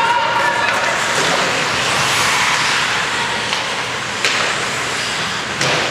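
Ice hockey game noise in an indoor rink: a steady wash of skate blades on ice and spectators' voices, with a couple of sharp clacks of stick or puck near the end.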